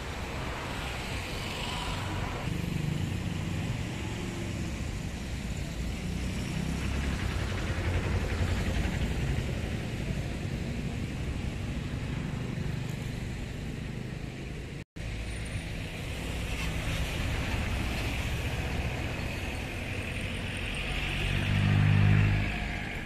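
Steady low rumble of road traffic, with one vehicle passing louder near the end. The sound cuts out for an instant about two-thirds of the way through.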